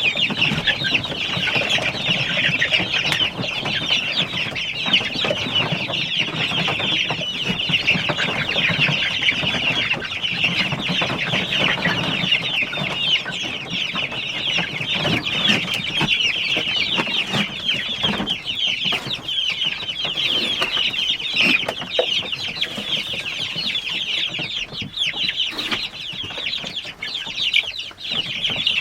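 A flock of chickens clucking and calling, many short high calls overlapping in a continuous chorus.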